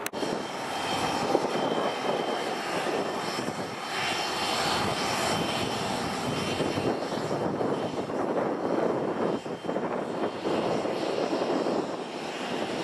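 Business jet's turbofan engines running at taxi power: a steady rushing hum with a thin, high turbine whine.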